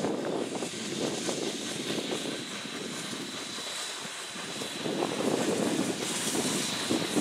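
Chichibu Railway's C58 steam locomotive hauling the SL Paleo Express away from the station, its exhaust and the rumble of the passing coaches pulsing unevenly, easing off mid-way and swelling again about five seconds in.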